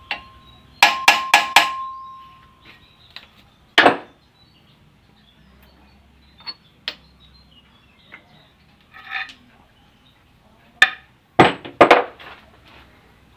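Hammer striking steel at a ball-joint press: a quick run of about five blows with a metallic ring about a second in, then a single heavy blow. Scattered clinks follow, and near the end a cluster of loud metal clanks as the steel control arm is handled.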